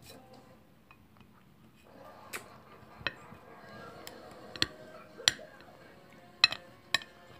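Knife cutting through a chocolate bonbon on a glass serving plate: about half a dozen sharp clicks and taps, spread out from about two seconds in, as the blade cracks the hard chocolate shell and knocks against the glass.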